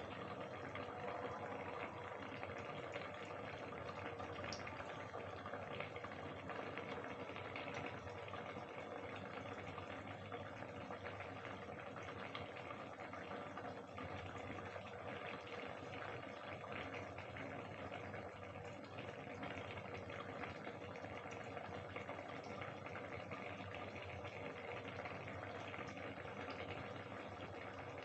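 Soyabean and potato curry simmering in a kadhai covered with a steel plate, a steady bubbling.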